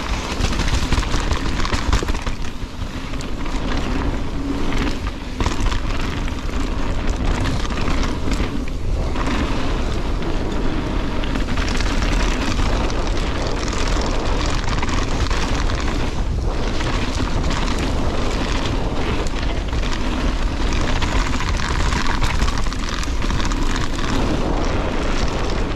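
Mountain bike riding fast down a dirt and gravel trail: steady wind noise on the microphone and tyre roar, with frequent knocks and rattles from the bike over bumps.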